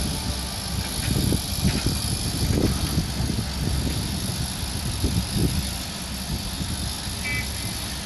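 Diesel engines of heavy equipment running, with a Komatsu hydraulic excavator working: an uneven low rumble.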